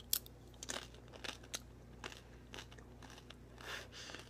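Hard taco shell being bitten and chewed: irregular crisp crunches, a few each second.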